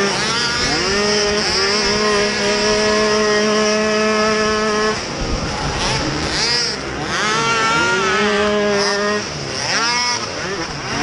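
Youth racing mini quad's small engine heard from on board at full throttle. It revs up and holds a high, steady pitch for a few seconds, drops off sharply about five seconds in, then climbs and falls again as the rider gets on and off the throttle through the corners.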